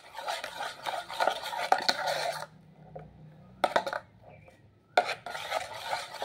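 Hand mashing and rubbing bael fruit pulp inside a metal pot, with scraping and knocking against the metal. It comes in two bouts, with a pause of about two seconds in the middle broken by one short burst.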